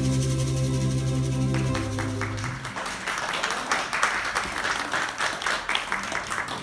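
Ukulele band holding its final chord, which ends about two and a half seconds in, followed by audience applause.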